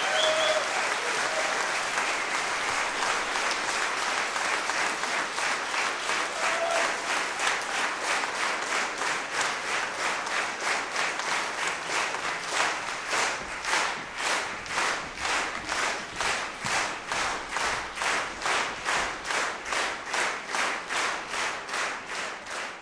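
Audience applauding in a small hall. The scattered clapping gradually falls into step and by the middle has become rhythmic clapping in unison, about two and a half claps a second.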